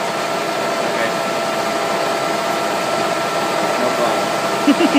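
Metal lathe running steadily with a steel shaft spinning in its chuck: an even machine hum with a constant whine.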